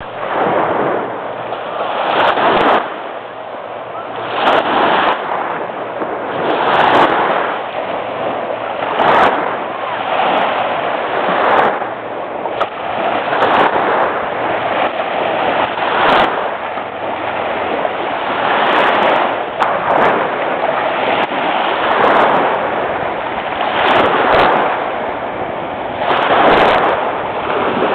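Small Lake Michigan waves washing onto a sandy beach, a rushing hiss that swells and fades about every two to two and a half seconds as each wave breaks at the shoreline.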